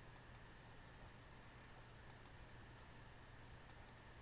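Faint, sharp double clicks, one pair about every one and a half seconds, in step with the counting program filling in each new running total. A low steady hum sits underneath.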